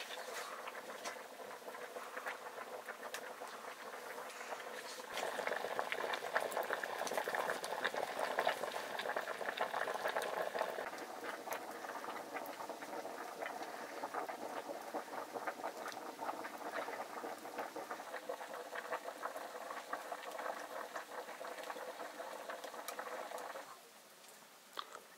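Food sizzling as it fries in a pan: a steady sizzle full of small crackles, louder from about five seconds in, which stops abruptly near the end.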